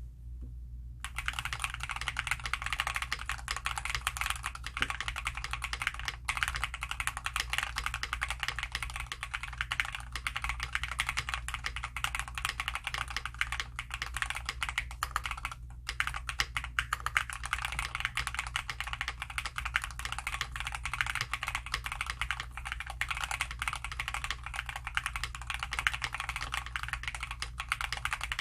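Continuous fast typing on a Bakeneko65 mechanical keyboard with lubed WS Aurora Clear switches and PBT keycaps, O-ring mounted with tape mod and polyfill dampening. The keystrokes have a crunchy sound. The typing starts about a second in and breaks off briefly a little past halfway.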